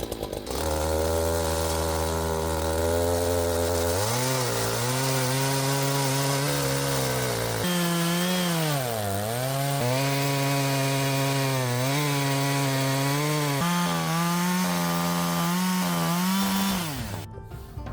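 Two-stroke chainsaw running hard while cutting into a wooden log, its engine pitch rising and then sagging sharply about halfway through as the chain bogs in the wood before recovering. The saw stops near the end.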